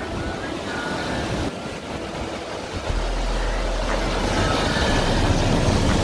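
Sea waves breaking and washing over a cobble beach, with wind buffeting the microphone. The low rumble grows heavier from about halfway through.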